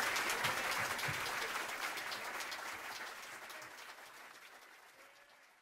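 Audience applause fading out steadily to silence.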